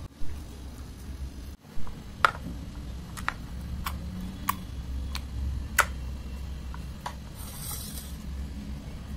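Pink Fevicol glue slime being squeezed and pressed by hand in a plastic bowl, giving a string of sharp, separate clicking pops, with a brief crackling hiss near the end as the slime is pulled off the bowl.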